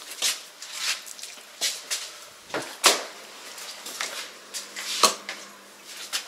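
Irregular knocks and clicks of objects being handled in a small room, the two loudest about three seconds in and again about five seconds in, over a faint steady hum.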